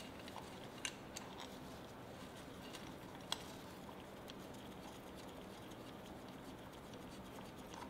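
Quiet workshop room tone with a low steady hum, broken by a few faint clicks and taps of small metal parts being handled, the loudest about three seconds in.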